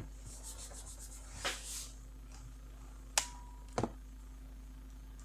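Laptop being handled on a desk: rubbing and sliding for about two seconds, then two sharp clicks about half a second apart, with a faint short tone between them.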